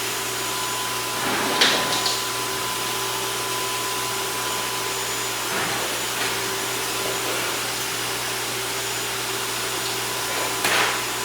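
Blow dryer running steadily with a constant whir and hum. It swells briefly about a second and a half in and again near the end.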